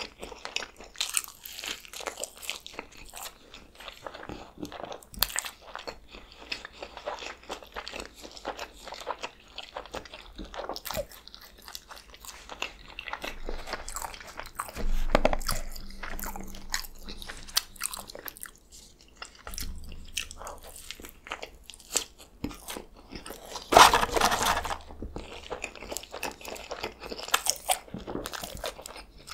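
Close-miked chewing of a McDonald's triple cheeseburger and french fries: soft wet mouth clicks and smacks packed closely, with a few louder handling noises, the loudest a short burst near the end.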